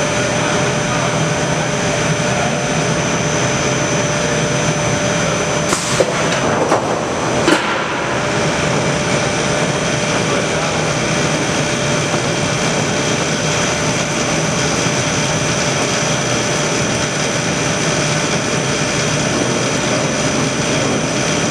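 Steady din of a glued-laminated timber beam production line: conveyor and machine noise with a faint steady whine, broken by a few short knocks a little after halfway through the first third.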